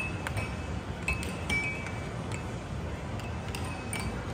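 Air hockey pucks clacking against mallets and table rails: irregular sharp clicks, some with a short ring, several a second, over the steady din of an arcade.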